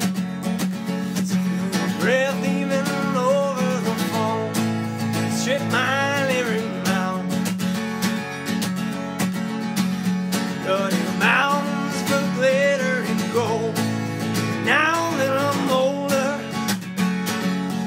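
Acoustic guitar played in a folk song, with a voice singing about four phrases over it.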